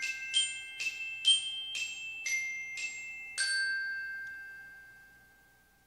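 Short musical logo jingle of bell-like, glockenspiel-style mallet notes, struck about twice a second. The last note a little over three seconds in rings on and fades away.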